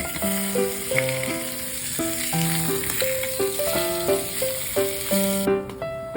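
Food sizzling in a frying pan, a steady hiss that stops abruptly about five and a half seconds in, over background piano music.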